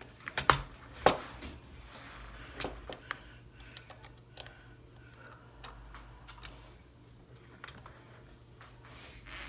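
Plastic Lego models being handled and set down: two sharp clicks in the first second or so, then scattered light ticks and rustling.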